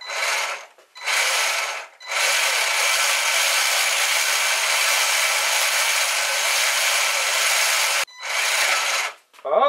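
The small gear-driven winch of an RC truck whirring and rasping as its string line is pulled off the drum by hand. Its gears are driven backwards: the winch takes its drive from the transmission, here in neutral with the winch engaged. There are a couple of short pulls, then one long pull of about six seconds, then a short one near the end.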